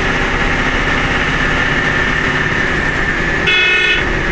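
Steady engine and road noise heard from the cab of a large vehicle driving along, with one short horn blast about half a second long near the end.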